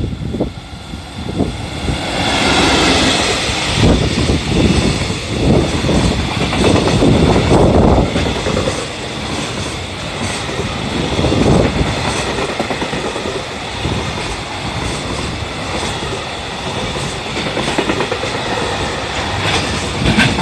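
EF65 electric locomotive hauling a freight train past at close range, followed by a long string of container wagons rolling by with their wheels clicking over the rail joints. It is loudest for the first few seconds as the locomotive goes by, then settles into a steady rumble of passing wagons.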